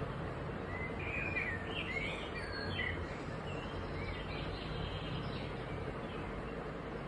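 Birds chirping in short, quick calls, most of them in a cluster during the first few seconds and a few fainter ones later, over a steady background hum and noise.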